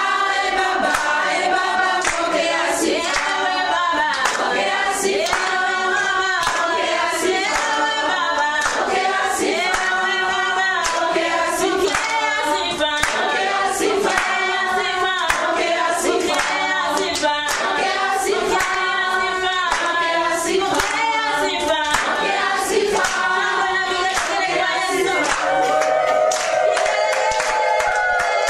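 A group of voices singing together, accompanied by a steady beat of hand claps. Near the end the singers hold one long note.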